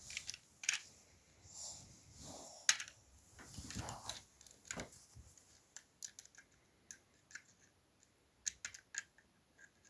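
Faint, irregular clicks and taps of a screwdriver and small plastic toy parts being handled during a toy repair, with a stretch of softer handling noise about two to four seconds in.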